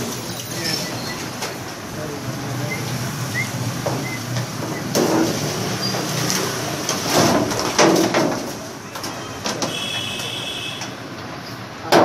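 Clatter and knocks of plastic and metal parts being handled on a top-loading washing machine that is being taken apart, with the loudest knocks about halfway through and voices in the background.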